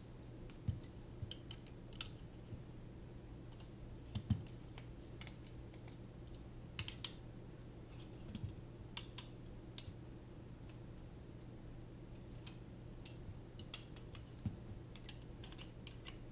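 Scattered small clicks and taps of hex drivers working frame screws while a carbon-fibre drone frame is handled and turned on a work mat, with a louder cluster of clicks about seven seconds in. A low steady hum runs underneath.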